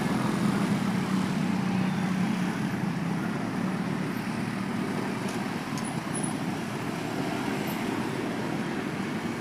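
Road traffic noise from many motorbikes and scooters crossing the railway tracks together, a steady mix of small engines with a low engine hum in the first couple of seconds.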